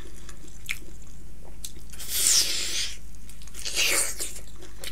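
Close-up mouth sounds of eating a curried chicken drumstick: soft chewing clicks, broken by two hissing rushes of air through the lips, a longer one about two seconds in and a shorter one near four seconds.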